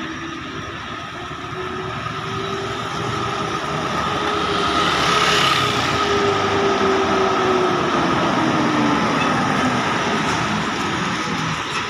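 Intercity coach's diesel engine running as the bus drives up and passes close, with motorcycles going by; the noise swells about two seconds in and stays loud. A thin steady high whine rides over the engine sound.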